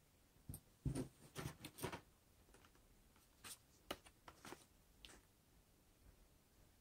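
Hands picking up and handling a plastic blister pack of glitter glue pens: a quick cluster of soft taps and crinkles about a second in, then a few scattered clicks.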